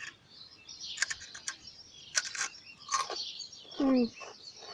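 Crunchy chips being bitten and chewed close to the microphone: clusters of sharp crackly crunches about a second apart, with a short hum from the eater near the end.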